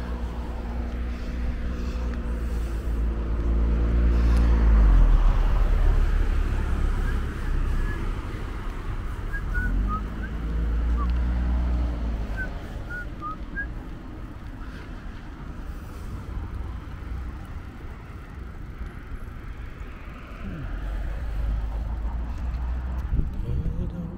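Wind rumbling on the microphone while cycling, over road traffic: a passing vehicle's engine drops in pitch about four to five seconds in, and another passes about ten seconds in.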